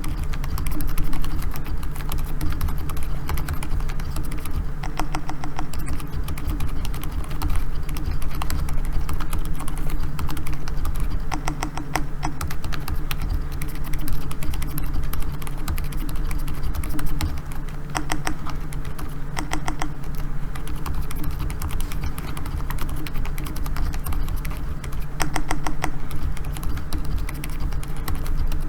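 Continuous typing on a Keychron K4 mechanical keyboard with a steel plate, PBT keycaps and hand-lubed Gazzew Bobagum silent linear switches. The quiet keystrokes fall in a fast, uneven patter over a steady low hum.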